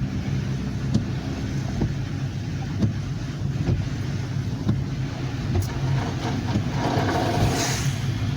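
Steady hum of a car driving, heard from inside the cabin, with road hiss from tyres on a rain-wet road and a few faint ticks.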